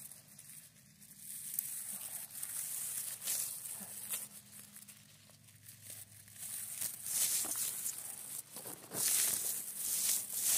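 Rustling and crinkling as a hand in a plastic glove pushes through grass and moss to pick mushrooms, in short scratchy bursts that grow busier and louder in the second half.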